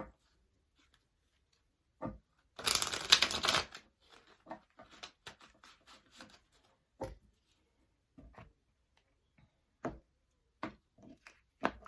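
Tarot cards being shuffled in a quick riffle about two and a half seconds in, then a series of short crisp snaps and taps as the cards are drawn and laid down one at a time.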